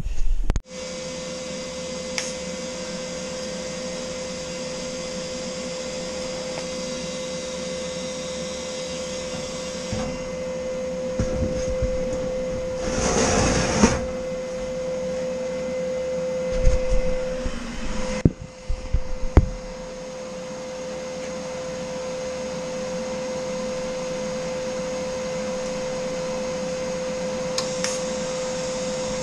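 Welding machine running with a steady hum and one held high tone, broken in the middle by a noisy burst and a few clatters of metal being handled.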